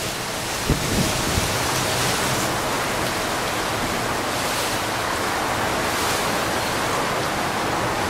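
Strong wind storm blowing hard across the camera's microphone: a steady, dense rush of wind noise.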